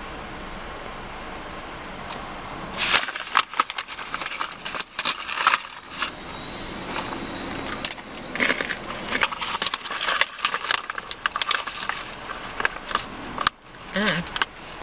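Crinkling of a plastic snack pouch and crunchy chewing of pistachio clusters: a dense run of irregular crackles and clicks that starts about three seconds in, after a steady low hiss.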